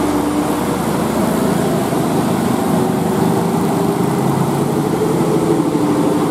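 Large bus engine running close by, with heavy steady engine and road noise; its engine note rises slightly in the second half.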